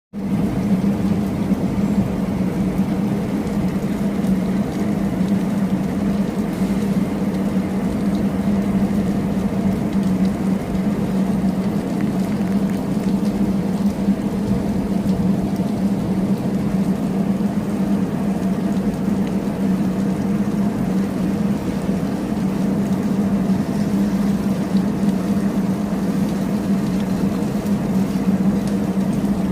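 Steady rain noise under a constant low hum.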